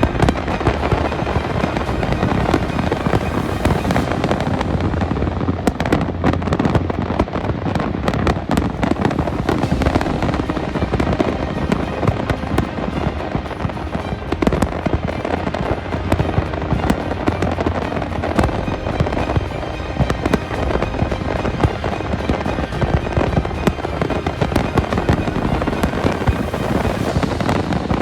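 Fireworks display: a dense, continuous barrage of bangs and crackling with no pause.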